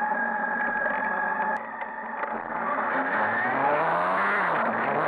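A vehicle engine runs at a steady speed. The sound changes abruptly about a second and a half in, and then an engine accelerates, its pitch rising for about two seconds before dropping back near the end.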